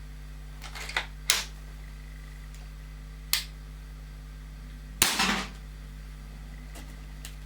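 Sharp clicks and cracks from a .20-calibre HW99 air rifle being handled and fired: single snaps a second or two apart, the loudest about five seconds in with a short rattle after it. A steady low electrical hum runs underneath.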